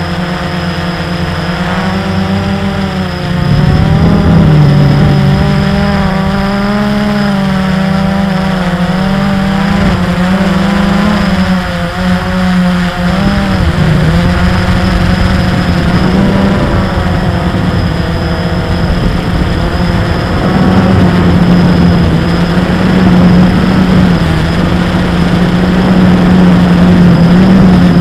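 A drone's electric motors and propellers buzzing close to its onboard microphone, the pitch wavering up and down as the throttle changes.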